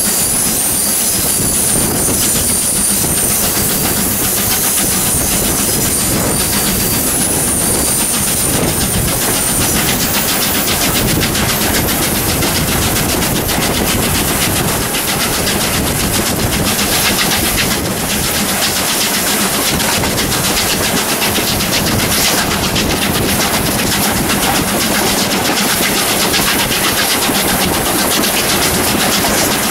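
Steam locomotive 621 working at the head of the train, heard from a carriage window: a fast, even beat of exhaust over the carriages' wheels running on the rails. During the first several seconds there is also a thin, high wheel squeal.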